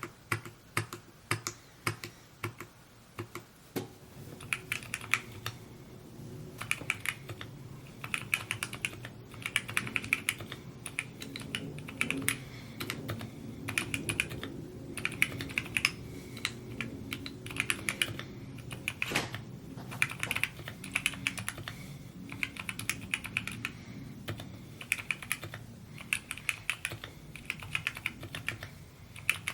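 Typing on a Mode Encore 2 mechanical keyboard: a continuous, fast stream of keystroke clacks.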